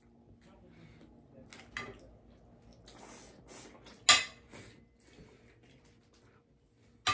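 Light clicks and clacks of tableware and crab-leg shells on a plate, with one sharp clack about four seconds in.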